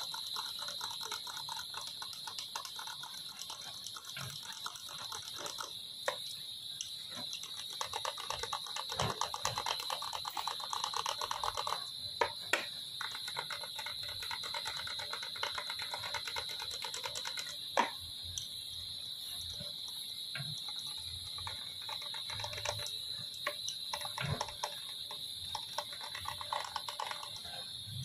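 Small hand tools working metal: rapid fine clicking and scraping in stretches, with a few sharper clicks, over a steady high-pitched whine.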